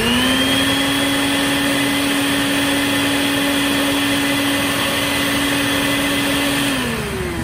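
Bucket-top wet/dry vac powerhead used as a blower to push smoke down a plumbing vent stack for a smoke test. Its motor spins up to a steady whine, runs for about seven seconds, then is switched off and winds down near the end.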